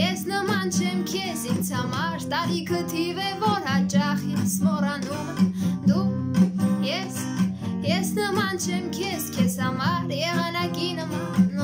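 A woman singing in Armenian, her voice wavering on held notes, over a Hohner acoustic guitar played in chords.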